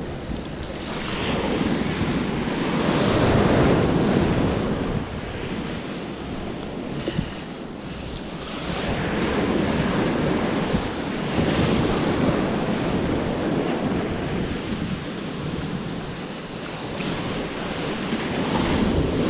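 Sea surf washing in around the legs in shallow water, swelling and easing as each wave runs in and draws back, with wind buffeting the microphone.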